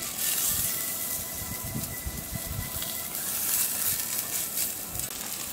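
Food frying in a hot pan: a steady sizzling hiss with fine spitting crackles and a few soft low knocks.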